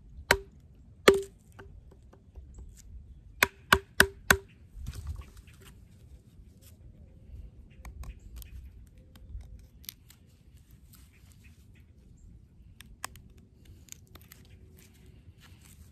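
A wooden baton striking the spine of a Lionsteel M2M knife, six sharp knocks in the first four and a half seconds, the last four in quick succession. After that comes only the faint scraping and ticking of the blade carving a small notch into a stick, with one more sharp click near the end.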